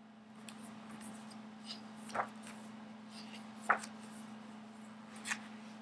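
Pages of a hardcover picture book being handled and turned: soft paper rustling with three sharper flaps or taps, about two, three and a half and five seconds in. A steady low hum runs underneath.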